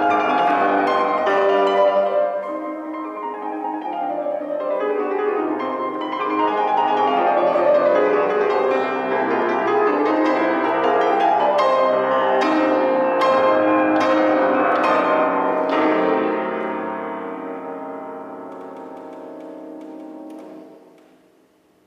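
Grand piano played solo: a dense classical passage of struck chords and running notes, with a run of strong accented chords about twelve to sixteen seconds in, then a held sound that fades and dies away to near silence near the end.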